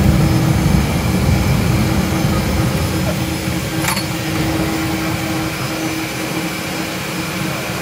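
Turboprop engine of a de Havilland floatplane running at low power while taxiing on the water, with a steady hum over a low rumble that gradually eases off. A single sharp click about four seconds in.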